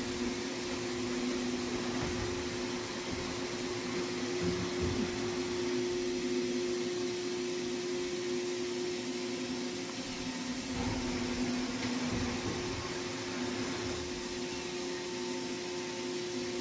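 Makino CNC machining center running steadily: an even machine hum with two constant whining tones over a hiss.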